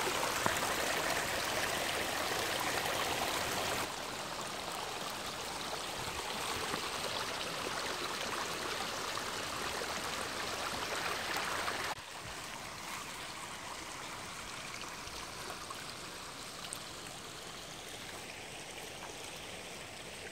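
Shallow stream running over a dirt bed: a steady trickling rush of water. It drops in level twice, about four seconds in and again about twelve seconds in.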